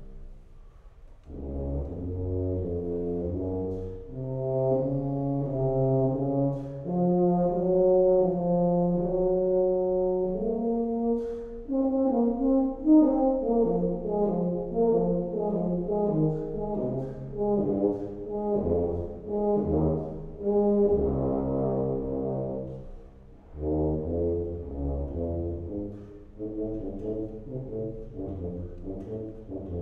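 Tuba playing a melody with piano accompaniment: long held notes at first, then quicker changing notes from about halfway, with short breaks about a second in and again near 23 seconds.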